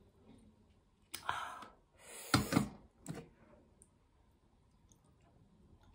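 Ceramic bowls handled and set on a brass plate: scraping with a couple of sharp knocks about two and a half seconds in, plus shorter scrapes around one and three seconds.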